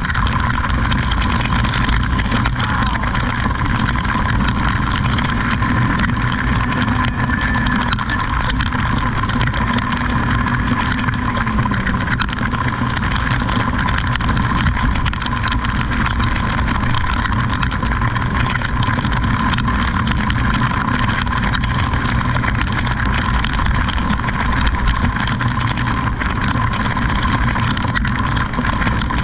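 A vehicle running steadily: engine and road noise with a thin, steady whine above it.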